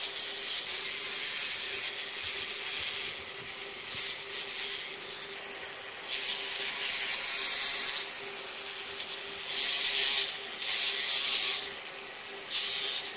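A small hand tool rubbing over the surface of a carved wooden elephant figure: a dry, scratchy hiss in strokes, one of about two seconds midway and several shorter ones toward the end. A faint steady hum runs underneath.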